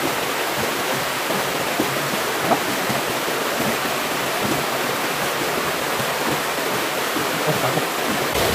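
Shallow stream water rushing steadily over rocks and a small dam.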